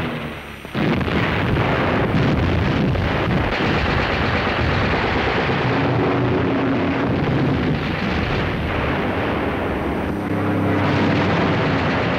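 Battle sound of continuous gunfire and explosions. It starts suddenly less than a second in, after a brief dip, and runs as a dense, rapid crackle of shots and blasts.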